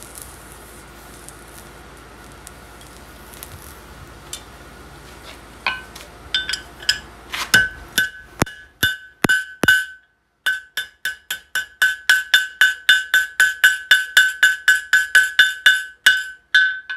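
Hand hammer striking hot steel on an anvil while forging a nail, each blow ringing out with a bright anvil note. A few spaced blows come about five seconds in, then after a short pause a steady run of about three blows a second, over a low steady hum.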